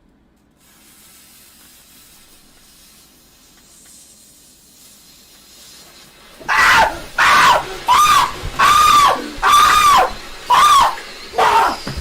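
A lit firework hissing faintly at first, then from about six seconds in giving a run of loud, high-pitched squealing whistles, each rising and falling in pitch, about three every two seconds.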